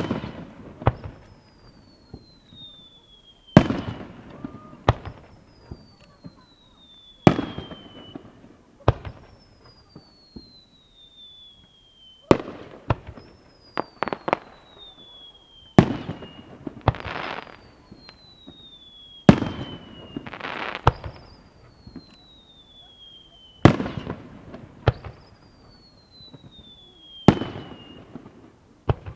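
Fireworks shells bursting in a series of sharp bangs, often in pairs, every three to four seconds, some trailing off in crackle. Between the bursts a thin high whistle glides downward in pitch over a couple of seconds, again and again.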